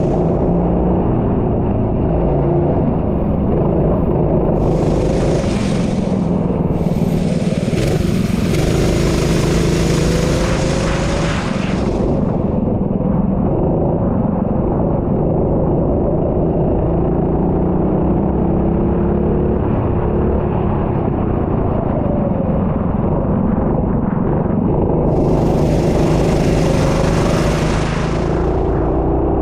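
A racing engine runs hard through a practice lap, its pitch rising and falling again and again as it accelerates and slows for corners. A rushing hiss joins in twice, for several seconds each time.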